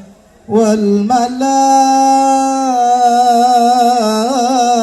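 A voice singing an Arabic sholawat line in melismatic style: after a short breath pause it holds one long steady note, then moves through wavering ornamented turns.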